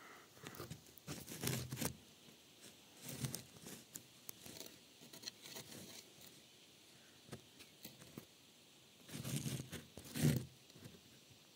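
Handling noise from the camera-phone: irregular bursts of rubbing and scraping close to the microphone, about a second in, again around three seconds, and loudest near the end.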